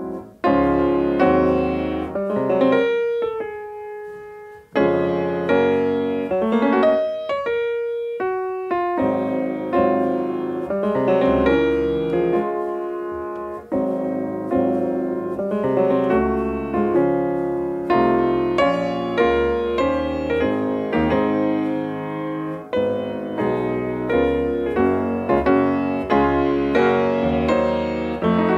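Background piano music, with a brief break about five seconds in and then a steady pulse of notes.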